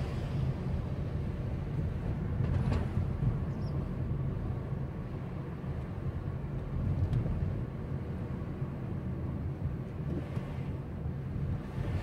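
Steady low rumble of a car driving at modest speed, heard from inside the cabin: engine and tyre noise on the road.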